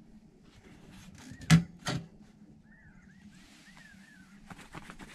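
Metal door of a Four Dog Three Dog DX camp wood stove swung shut with a sharp clank and a second, softer click as the latch catches. A few faint, high, descending squeaks follow.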